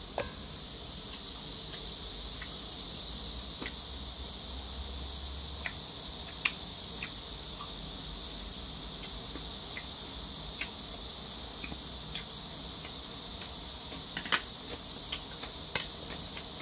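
A metal spoon clicks and scrapes now and then against a porcelain bowl of noodles during eating, with the sharpest clicks near the end. Under it runs a steady high-pitched drone of insects.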